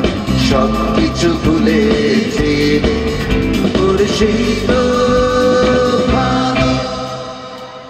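Live rock band playing an instrumental passage: electric guitar lines over drums and bass. The music fades down over the last second or so.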